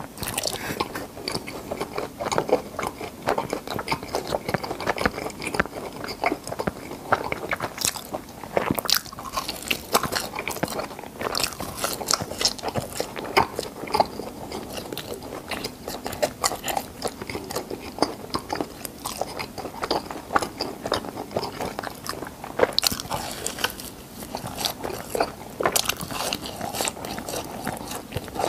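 Close-miked chewing of crispy cheese balls, with frequent short crunches and crackles of the crust throughout.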